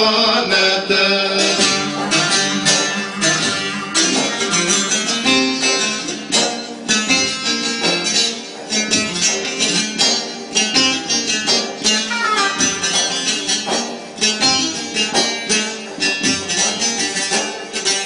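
Live Turkish folk music: a bağlama (long-necked saz) played in quick, busy plucked runs over a sustained electronic keyboard accompaniment.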